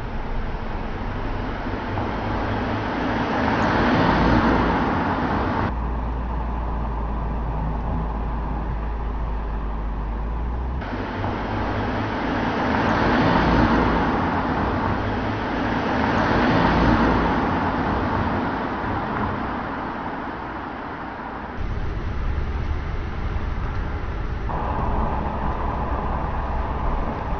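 Mercedes-Benz C-Class sedan driving by, its tyre, wind and engine noise swelling and fading three times as it passes. The background changes abruptly a few times.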